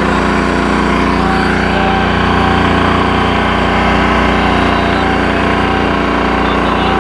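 Passenger motorboat's engine running steadily under way, an unchanging mechanical hum at a constant pitch.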